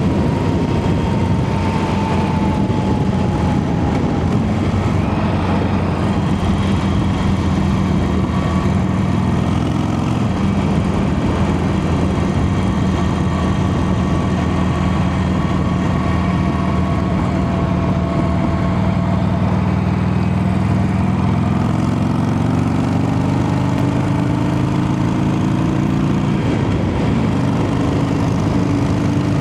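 Harley-Davidson Sportster 883's air-cooled V-twin running under way, a steady engine note for most of the stretch. Near the end it climbs as the bike accelerates, drops sharply with a gear change and starts climbing again.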